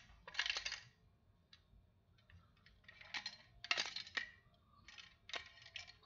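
Clinking and rattling of a fire alarm pull station being turned over in the hands, in several short clattering bursts, with a loose screw rattling around inside it.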